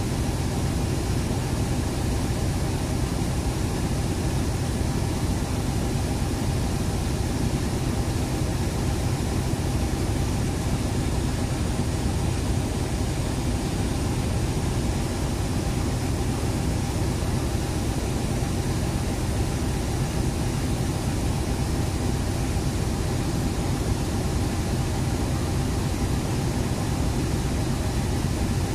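Railway diesel engine idling: a steady, unchanging low hum.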